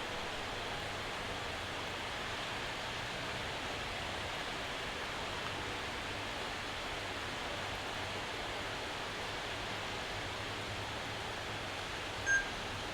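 Steady rain shower falling, an even hiss. A short high chirp sounds near the end.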